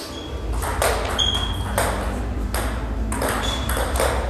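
Table tennis rally: a celluloid ball hit by rubber-faced paddles and bouncing on the table, with sharp clicks about a second apart, some with a short high ring. A steady low hum runs underneath.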